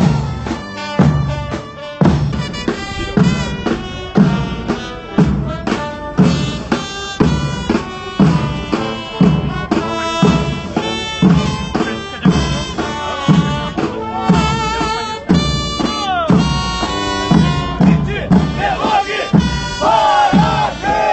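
Military marching band playing a march, with field drums and bass drum keeping a steady beat a little faster than one per second under a melody. Near the end, men's voices join in loud chorus.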